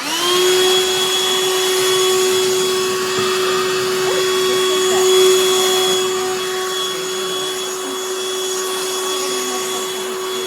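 BLACK+DECKER Dustbuster cordless handheld vacuum switched on. Its motor spins up within a fraction of a second into a steady whine over rushing air, and runs on evenly.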